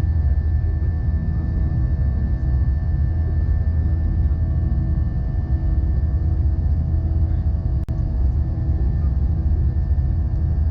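Cabin noise of an Airbus A319 with IAE V2500 engines climbing out: a steady low rumble of airflow and engines with faint steady engine tones over it, briefly broken by a click about eight seconds in.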